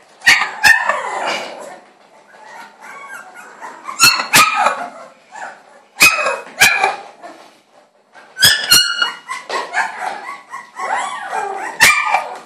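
Puppy barking in short, high-pitched yaps, mostly in pairs, several times over, with whining between them.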